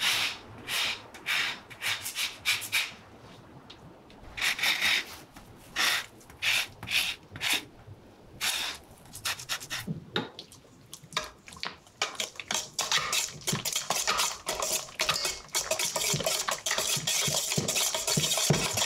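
A fine rasp zester scraping orange peel in short separate strokes, over a stainless steel KitchenAid mixer bowl. About ten seconds in, a wire whisk takes over, beating egg and sugar fast: the wires scrape and clink against the steel bowl in a quick continuous rhythm that gets louder toward the end.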